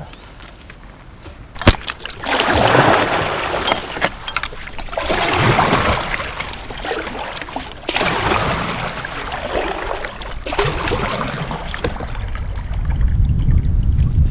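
Kayak paddle strokes in river water: a sharp knock about two seconds in, then four swishing, splashing pulls of the blade, roughly one every three seconds.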